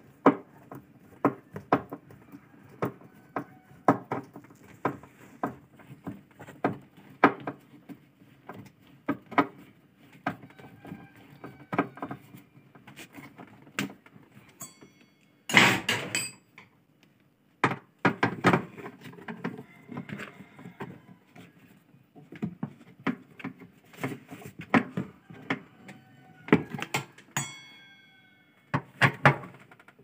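Irregular metallic clicks and knocks of hand tools turning and seating the fixing screws of a washing machine's gearbox in its steel mounting plate. Louder clatters come about halfway through and again near the end.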